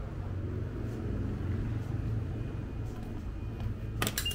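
Low steady rumble, then near the end a brief clatter and a short high beep from a station's automatic ticket gate as an IC card is tapped on its reader.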